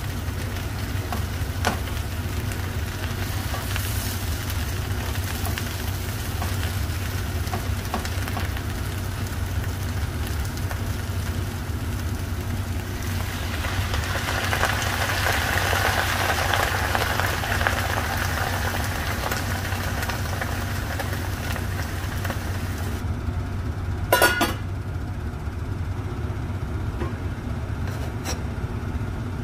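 Taro stems cooking in a stainless skillet with a faint sizzle over a steady low hum. About halfway through, water poured from a pitcher into the hot pan gives a louder splashing hiss for several seconds. Near the end there is one sharp knock.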